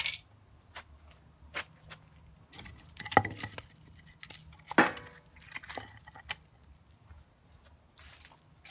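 Scattered light knocks and clinks from handling a freshly sawn piece of wood, with louder knocks about 3 and 5 seconds in.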